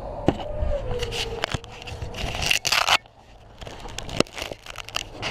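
Handling noise from a camera being picked up and moved by hand: irregular scraping, rustling and knocks right on the microphone, loudest about two to three seconds in. A faint wavering whine sits underneath at the start.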